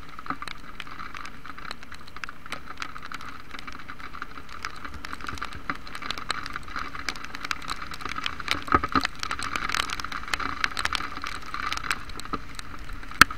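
Heavy rain: a steady hiss with dense, irregular ticks of raindrops striking the camera on a moving motorcycle. The ticks get busier and louder about eight seconds in, and there is a single sharp tap near the end.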